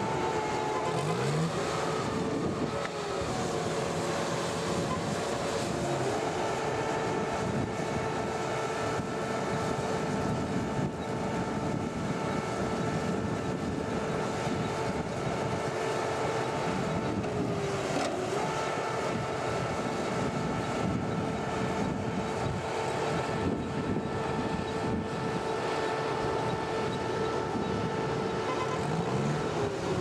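Heavy diesel logging machinery running at a cable-yarding landing: a steady engine whine that changes pitch a few times, with lower rising and falling engine tones beneath.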